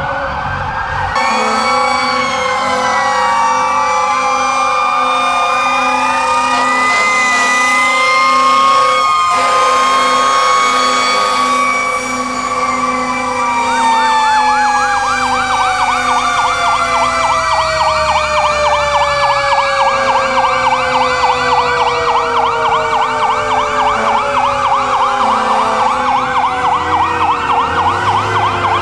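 Several fire truck sirens sounding at once, wailing up and down over each other. About halfway through, a fast yelp joins in, and one siren slides steadily down in pitch as it winds down.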